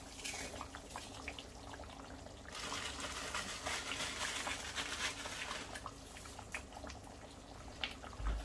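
Chicken curry simmering in a pan, a steady bubbling and crackling that gets louder about two and a half seconds in. A dull thump near the end.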